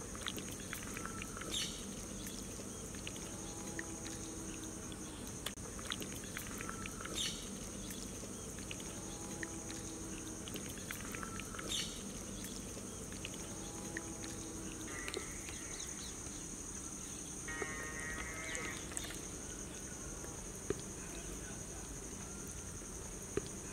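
Quiet outdoor ambience: a steady high-pitched insect drone over a low hum, with a few faint animal calls about a second long each and a few light clicks.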